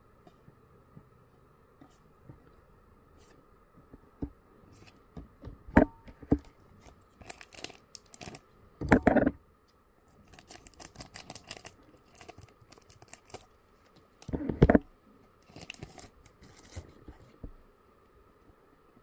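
Scissors cutting open a foil Ride Chemy trading-card booster pack, with the wrapper crinkling and cards being handled. A few louder handling knocks come about six, nine and fifteen seconds in.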